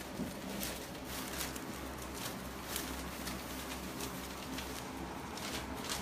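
Puppies' paws and claws tapping and pattering irregularly as they scramble about in play, over a low steady hum.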